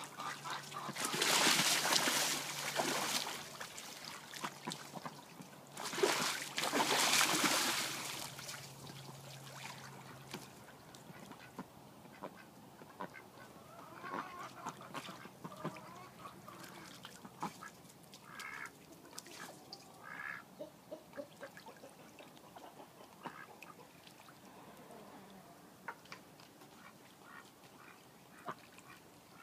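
Pekin ducks bathing in a small pond: two bouts of loud splashing in the first several seconds, then quieter paddling and dipping with a few short quacks around the middle.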